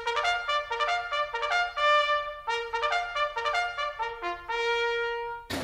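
Opening music: a short solo melody of quick notes with a bright, brassy tone, ending on a long held note before it cuts off.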